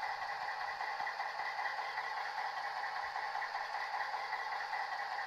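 Sound decoder of a Piko SU45 model locomotive playing a steady diesel idling sound through the model's small onboard speaker.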